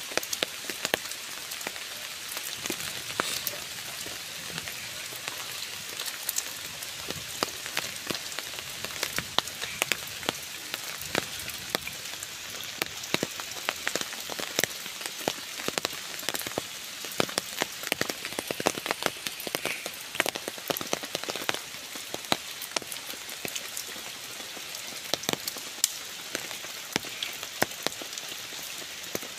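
Steady rain falling on leaves and wet ground, with frequent sharp, loud drops landing close by.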